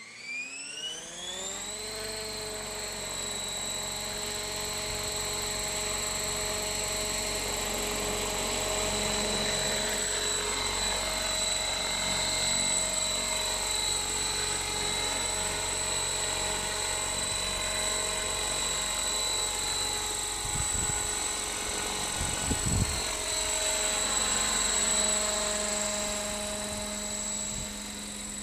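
Electric radio-controlled model helicopter (JetRanger scale body on T-Rex 600 mechanics with 690 mm rotor blades) spooling up, its whine rising in pitch over the first couple of seconds, then running at flight speed with a steady high-pitched motor and gear whine over rotor noise as it hovers and flies, the pitch wavering as it manoeuvres.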